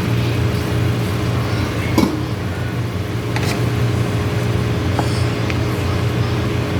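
A steady low mechanical hum with a constant tone over it, with a few light clicks or knocks, about three of them, spaced through the sound.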